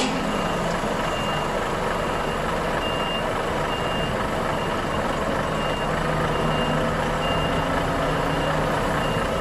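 Reach stacker's reversing alarm sounding repeated high beeps over the steady running of heavy diesel machinery.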